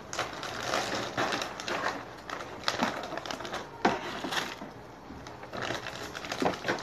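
Tortilla chips crackling and rustling against each other as they are handled and arranged on a plate, in irregular dry crunches.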